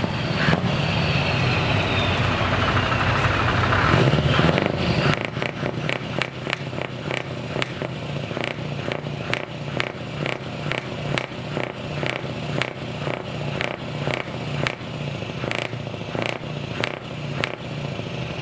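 Scania V8 truck engine with an open exhaust pipe running: it rises in revs over the first four seconds, then drops back at about five seconds to an idle with a regular pulse of about three beats a second.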